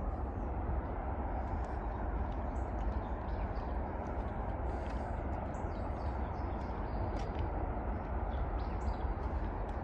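Birds chirping in short, scattered calls over a steady low rumbling background noise.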